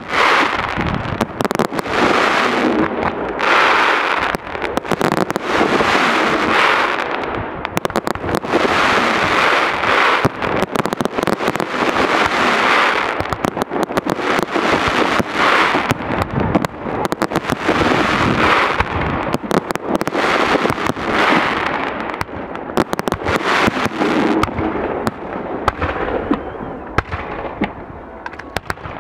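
Fireworks display going off without a break: many sharp bangs close together over recurring swells of crackle from bursting shells, thinning a little near the end.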